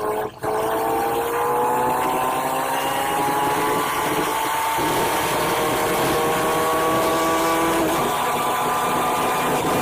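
City bus engine and drivetrain heard from inside the cabin while the bus accelerates, a whine whose pitch rises steadily and then shifts about eight seconds in.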